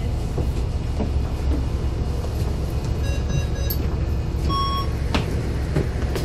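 Bus interior with the engine running as a steady low rumble, while the card readers by the door give short electronic beeps about three and four and a half seconds in as passengers tap off. A sharp knock comes a little after five seconds.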